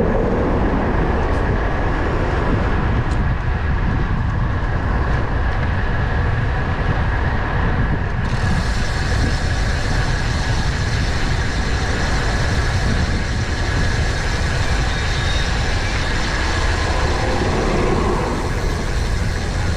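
Steady rumble of wind on the microphone of a moving bicycle, with city traffic noise beneath it.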